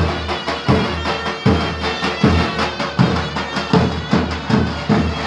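Davul and zurna playing Turkish folk music: the shrill double-reed zurna carries the melody in held, reedy tones over the big double-headed davul. The davul lands a heavy low stroke about every three-quarters of a second, with lighter strokes between.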